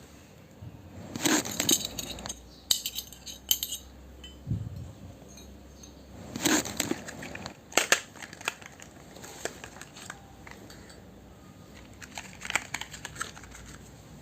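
Small toy kitchen pieces being handled and set down: irregular clicks, clinks and light crinkling in short clusters, with one duller knock about four and a half seconds in.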